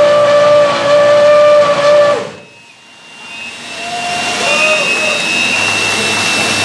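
Racing car engine held at a steady high rev, then cut off about two seconds in, the pitch sagging as it dies. A hiss then builds up over the last few seconds.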